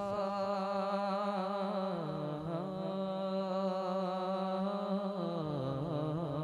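A man singing a naat unaccompanied through a PA system, drawing out 'Mustafa' in one long held note. The pitch steps down about two seconds in and turns into a wavering ornament near the end.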